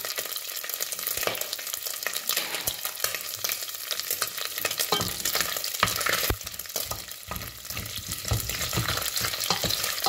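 Diced ham sizzling in hot rapeseed oil in a stainless steel pot, with many small pops. From about halfway through, a wooden spoon stirs the pieces around the pot.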